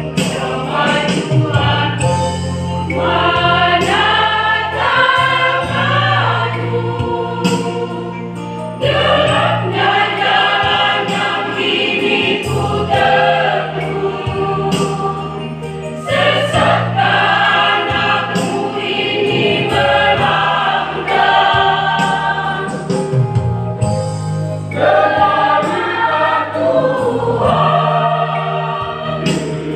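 Church choir singing a praise hymn in parts, in phrases of a few seconds each, over sustained low accompaniment notes.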